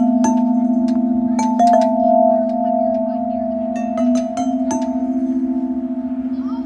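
Metal tubular chimes of an outdoor park instrument struck with a rubber-headed mallet: a handful of strikes, each note ringing on and overlapping the others, the sustained tones wavering as they slowly fade.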